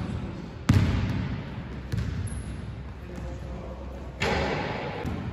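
Basketball bouncing on a hardwood gym floor, a few dull thuds that echo through the hall, then a sharper, brighter hit with a long echo about four seconds in as a shot reaches the hoop.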